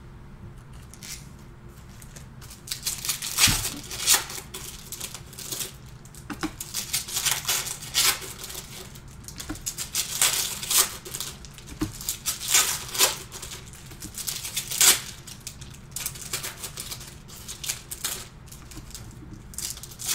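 Foil-wrapped trading card packs and card stacks being handled and gathered on a table: irregular crinkling and tapping that starts about two and a half seconds in.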